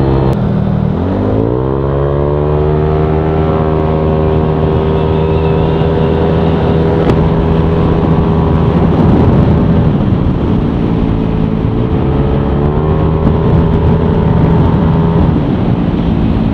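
Yamaha Aerox scooter's single-cylinder engine, bored up to 200cc and fitted with an MTRT EVO 2 stainless exhaust, pulling while riding. About a second in the throttle opens and the revs climb quickly, then hold high and steady. About three-quarters of the way through they climb a little again.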